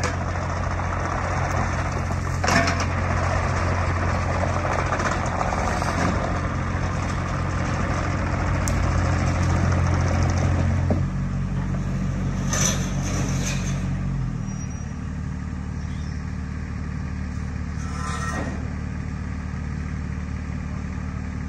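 Mini excavator's diesel engine running while the machine tracks off its trailer, then dropping back to a lower idle in two steps about halfway through. A few short metal clanks sound over the engine.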